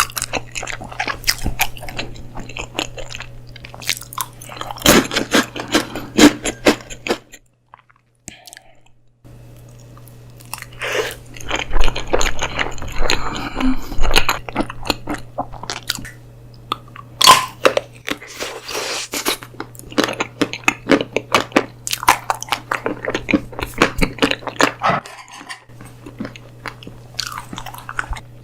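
Close-miked mukbang eating: bites, crunching and chewing, with a brief silent break about seven seconds in.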